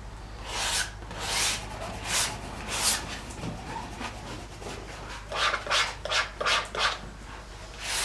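Small palette knife scraping and laying oil paint onto a stretched canvas in short rasping strokes, a little under a second apart at first, then a quicker run of strokes from about five seconds in.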